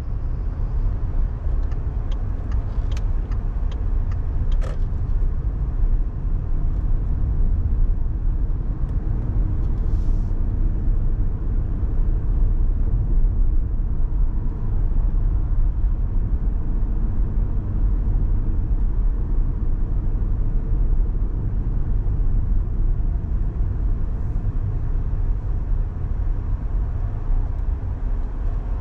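A car on the move: a steady low rumble of road and engine noise with tyre hiss. A few light clicks come between about two and five seconds in.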